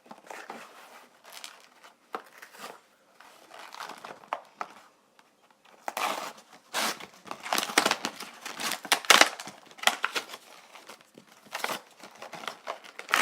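Action-figure packaging being torn open and crinkled by hand, in irregular rustles and rips that grow louder and busier from about six seconds in.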